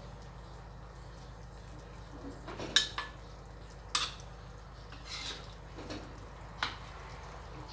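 Metal spatula and tongs clinking and scraping against a wok as curry is lifted out into a bowl: about five short, sharp clinks spread over a few seconds, the loudest a little under three seconds in.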